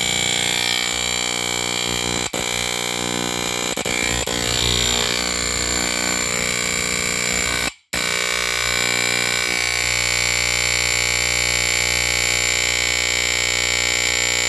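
Firex FXC-1 line-cord smoke detector (circa 1979) sounding its vibrating horn on test: a loud, steady alarm tone. It cuts out for a split second just past halfway, then sounds again.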